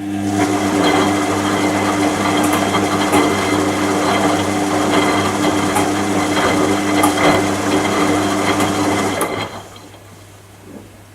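Washing machine running: a steady motor hum with a rough mechanical noise over it, which stops about nine seconds in.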